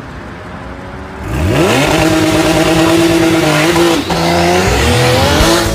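Porsche 911's flat-six engine revving hard under full-throttle acceleration. Starting about a second in, the pitch climbs fast and holds high; about four seconds in it breaks off and drops at an upshift, then climbs again near the end.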